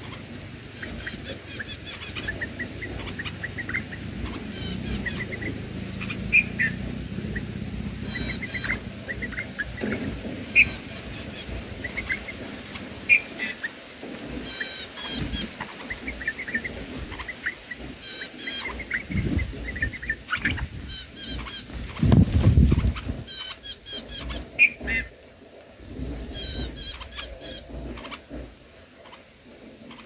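Bulbuls at the nest chirping: clusters of short, high, quick chirps repeating every second or two, with lower chirps between them. A brief low rumble comes about two-thirds of the way through.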